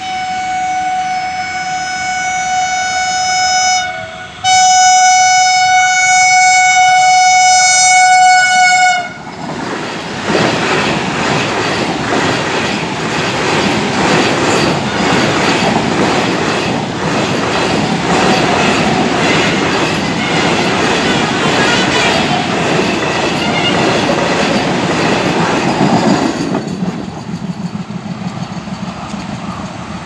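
Vande Bharat Express electric trainset sounding its horn in two long blasts, each ending with a slight dip in pitch. It then rushes past close by at speed, with a rhythmic clatter of wheels over the rails for about sixteen seconds, fading near the end.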